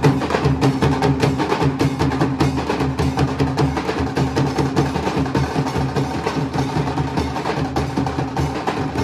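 A Nasik dhol troupe playing together: several large barrel drums struck with wooden sticks in a fast, steady rhythm. Dense, sharp stick strikes ring over deep, sustained drum tones.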